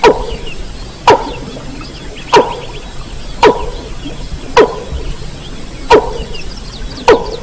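Repeated call of a mandar (a rail) from a bird-lure recording. It is a sharp call falling steeply in pitch, seven times at an even pace of about one every 1.2 seconds, with fainter high chattering between the calls.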